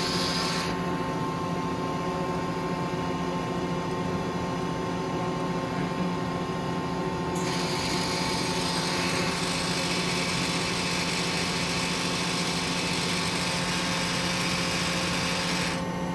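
Mori Seiki ZL150SMC CNC lathe running under power: a steady machine hum with several fixed tones. Above it, a hiss cuts out about a second in, comes back about halfway through, and drops away again near the end.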